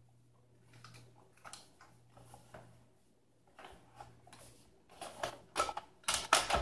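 Hard plastic parts of a Nespresso Vertuo Next's round top cover being handled and pressed into place: scattered rubs, clicks and knocks, with a cluster of louder snaps near the end.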